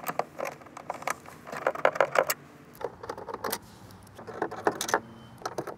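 Ratchet wrench with a 10 mm socket clicking, with small metal clinks of the socket and bolts, in several short bursts as the bolts holding the radio bracket are loosened.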